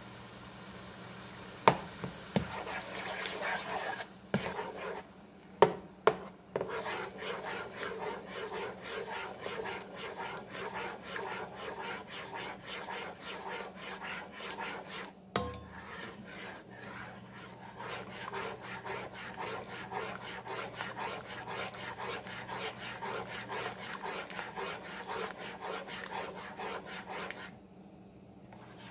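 A spoon stirring and scraping around the bottom of a pot of melting butter, in a steady rhythmic back-and-forth. A few sharp knocks of the spoon against the pot come in the first several seconds and once more about halfway through.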